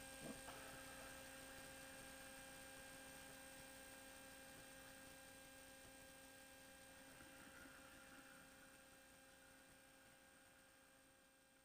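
Near silence: a faint steady electrical hum with a few even tones, fading out about eight seconds in.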